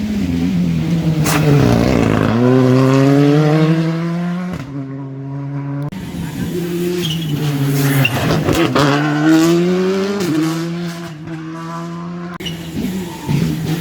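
Rally car engines driven hard: the revs drop under braking and climb again through several gear changes as the cars pass. The sound changes abruptly twice, about four and a half seconds in and near the end.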